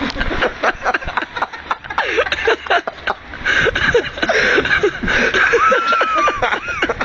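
Men talking and snickering with laughter, with a drawn-out high-pitched vocal sound near the end.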